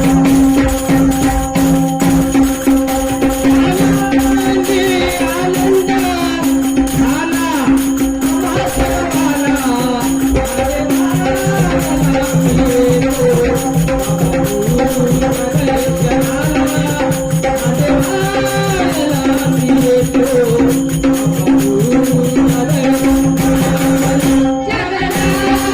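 Bhajan music: a dholki drum playing a fast, dense rhythm with jingling hand percussion, over a steady held drone and a wavering melody line. The music dips briefly near the end.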